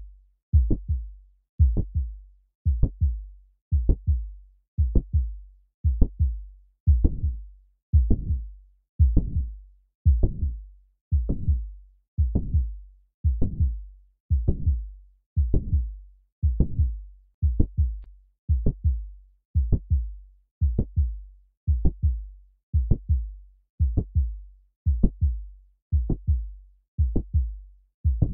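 Recorded heart sounds of mitral stenosis at the mitral area: a regular heartbeat with a low-pitched, drum-roll-like rumble after the second heart sound in each beat.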